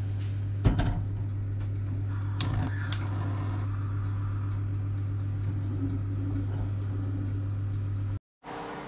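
A saucepan set down on the cast-iron grate of a gas hob with a knock, then two sharp clicks as the burner is lit, over a steady low hum. The hum cuts off suddenly near the end.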